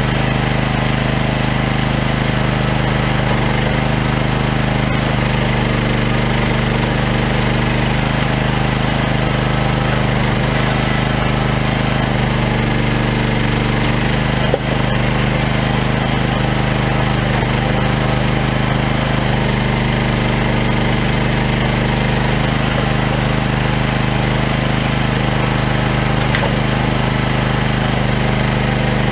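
Regon R1 firewood processor running steadily while logs are cut and split, an engine humming with a steady low drone, with a single sharp knock about halfway through.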